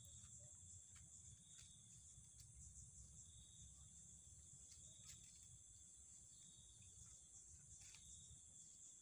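Faint, steady chirring of insects such as crickets, over a low rumble, with a few soft ticks.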